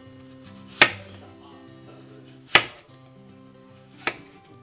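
Kitchen knife slicing through apple and striking a wooden cutting board: three sharp knocks roughly a second and a half apart, the last one lighter.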